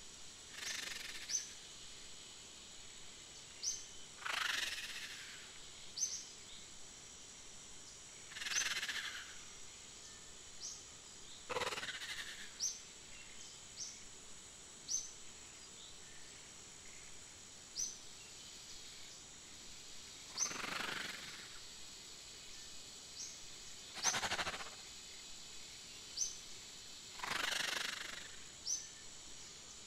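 Short high chirps recurring every second or two, with about seven louder breathy hisses, each roughly half a second to a second long, over a faint steady high tone.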